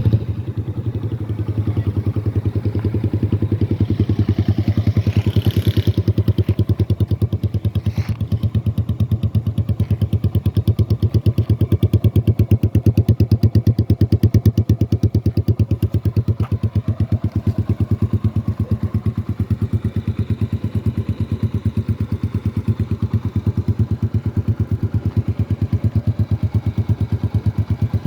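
Yamaha YBR 125's single-cylinder four-stroke engine idling through an Akrapovic exhaust with the dB killer removed, a loud, steady, even pulsing.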